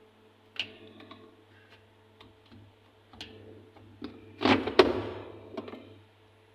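Sharp clicks and knocks from a washing machine being handled, with a louder clattering knock about four and a half seconds in, over a low steady hum.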